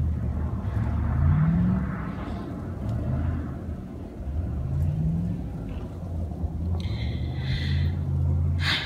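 A car engine running in a parking lot, revving up twice with its pitch rising and falling back to a steady drone, as the driver spins around on the ice. A short higher-pitched whine comes near the end.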